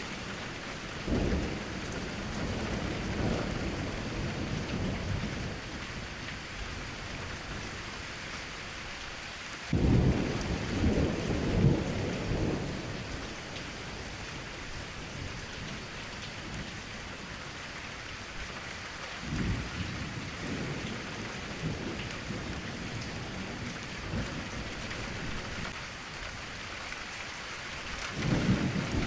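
Steady rain falling in an even hiss, with rolling thunder rumbling low several times; the loudest rumble comes about ten seconds in, with weaker ones near the start, around twenty seconds and near the end.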